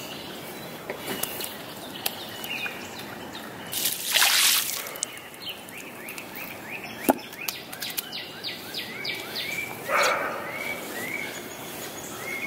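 Small birds chirping over creek water: a quick run of sweeping chirps about eight seconds in, then short rising notes about twice a second toward the end. Two louder splashy noises come about four seconds in and again about ten seconds in.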